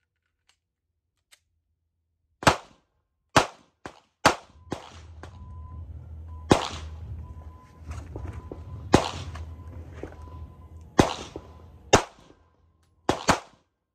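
Pistol shots, about ten, sharp and irregularly spaced, with two in quick succession near the end.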